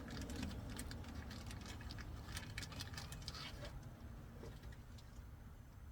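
Irregular light clicks and taps of hand tools and metal fittings being handled, over a faint low rumble; the clicks die away after about three and a half seconds.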